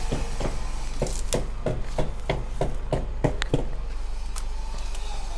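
Footsteps walking briskly, about three steps a second, that stop a little past halfway through.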